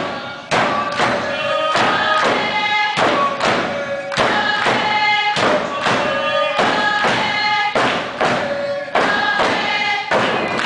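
Tlingit dance song: a group of voices singing in unison over a steady, even beat on hand-held frame drums.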